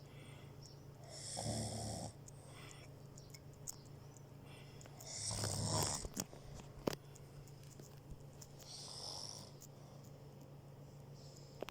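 Slow, regular snoring: three long snores a few seconds apart, the middle one loudest, over a steady low hum, with a couple of faint clicks.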